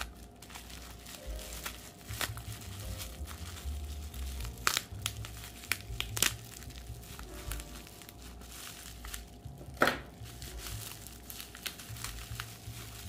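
Packaging crinkling and rustling as doll parts are unwrapped by hand, with a few sharp crackles and tearing sounds scattered through it.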